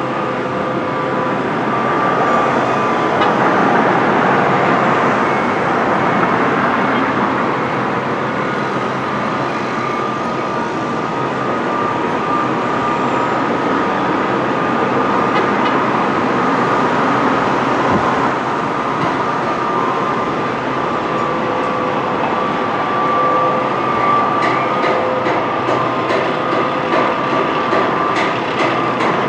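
Disneyland Railroad train running on its track: a steady rumble with held high-pitched tones over it and a rapid clicking near the end.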